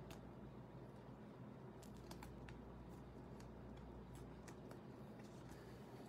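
Faint, scattered small clicks and rustles of thin plastic penny sleeves as trading cards are slid into them.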